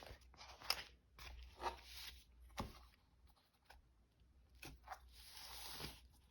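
Paper rustling and crinkling as sheets are handled and unfolded, with a few light taps and a longer rustle about five seconds in.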